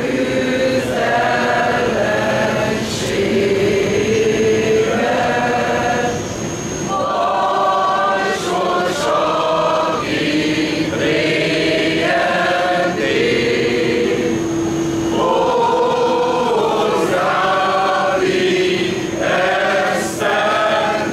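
A group of voices singing a slow religious hymn together, in phrases of long held notes with short breaks between them.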